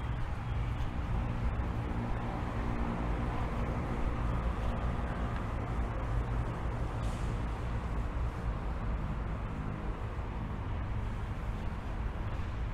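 Steady outdoor city ambience dominated by a low, even rumble of traffic, with no distinct events.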